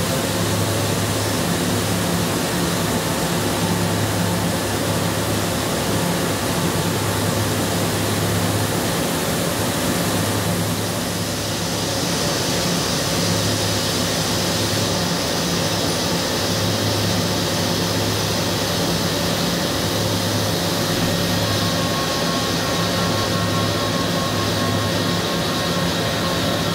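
CNC machining centre milling hardened SKD61 die steel with an end mill at 8,000 rpm. The spindle and cut make a steady hiss with a few steady hum tones and a low drone that comes and goes, and the high hiss grows louder about halfway through.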